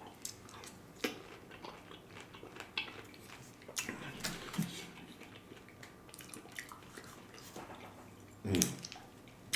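Soft close-up chewing of fruit in coconut water, with small wet clicks and crunches from pomegranate seeds.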